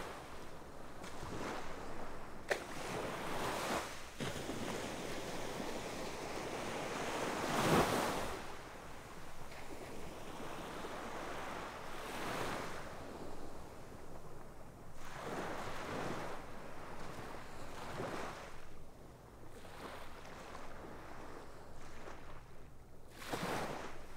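Sea surf on a sandy beach: small waves breaking and washing in every few seconds, the biggest about eight seconds in, with wind noise on the microphone.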